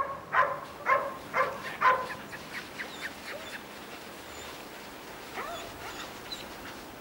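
A dog barking repeatedly, about two barks a second, stopping about two seconds in. Fainter high chirps follow.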